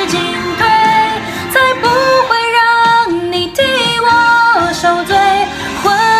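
Unaccompanied solo voice singing a Mandarin pop ballad, holding long notes and stepping from pitch to pitch.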